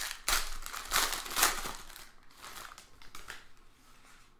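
Plastic-and-foil trading card pack wrapper crinkling and rustling in the hands as a pack is opened, in a run of bursts that is loudest in the first second and a half and then fades away.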